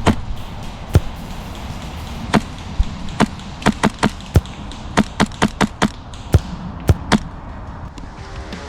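Airsoft guns firing: about fifteen sharp single shots at irregular spacing, some in quick runs, stopping about seven seconds in.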